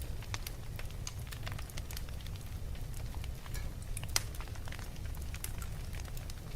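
Wood fire crackling in a fireplace: irregular pops and snaps over a low, steady rumble. One sharp pop about four seconds in is the loudest.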